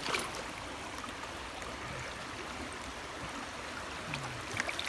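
Small creek flowing: a steady rush of water, with a brief knock about at the start and a few faint ticks near the end.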